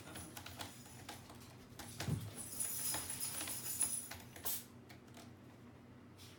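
A cat crunching dry food, heard as scattered small clicks, along with knocks from a cat batting a hanging toy on a cat tree. About two and a half seconds in, a high jingling runs for about two seconds.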